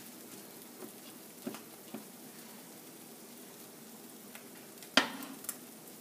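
Egg sizzling faintly in a nonstick frying pan, with a few light knocks of spatulas against the pan. A sharp clack of a utensil on the pan about five seconds in is the loudest sound, followed by a softer one.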